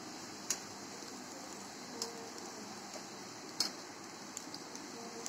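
Wheat-flour dough pieces deep-frying in hot oil in a kadai: a faint steady sizzle, with a few sharp clicks as a metal skimmer stirs them.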